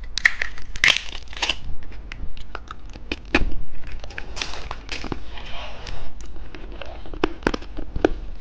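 Plastic candy wrappers crinkling and tearing as they are handled, with many sharp clicks and rustles.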